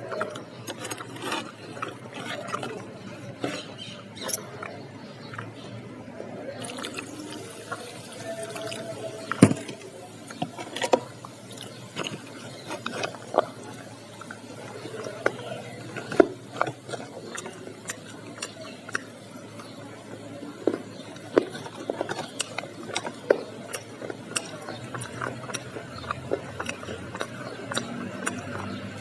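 Close-up eating sounds: irregular crunching bites and wet chewing of crisp samosa with sauce, with a few louder crunches along the way.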